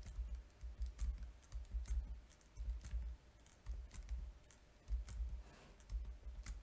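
Soft computer keyboard keystrokes, single presses spaced irregularly about half a second apart.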